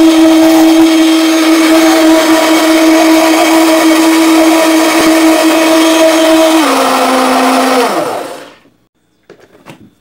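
Arno electric blender's motor running at full speed, spinning water and soap into foam in the jar, a loud steady hum. About six and a half seconds in it drops to a lower pitch, then winds down and stops about two seconds later, followed by a few faint clicks.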